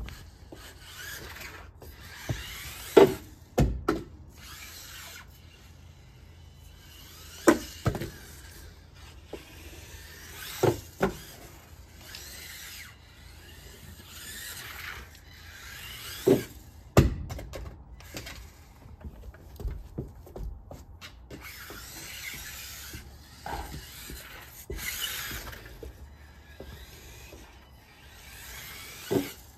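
Losi Micro-B electric RC buggy driven in short bursts on a dew-wet wooden deck, its motor whirring and tyres scrubbing and squealing, with several sharp knocks, often in pairs, as it hits and crashes into things.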